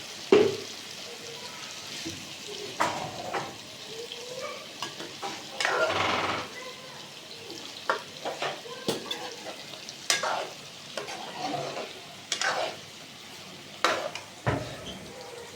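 Meat and spice masala sizzling in a karahi while a spoon stirs it, scraping and clinking against the metal pan every second or two.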